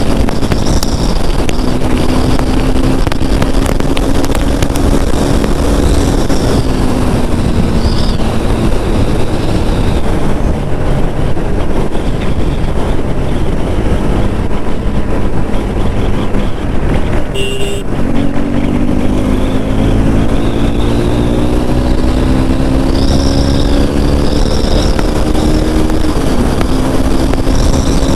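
KTM RC 390's single-cylinder engine pulling hard at highway speed, under heavy wind rush. About two thirds in, the engine note climbs steadily through a gear, dips with an upshift near the end, and climbs again.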